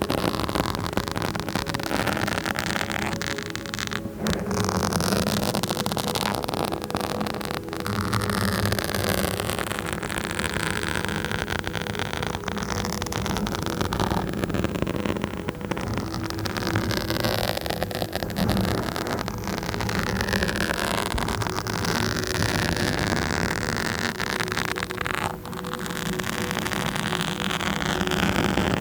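Continuous close-up scratching and rubbing on a microphone: a dense, scratchy rustle with a low rumble, steady in level with only brief dips.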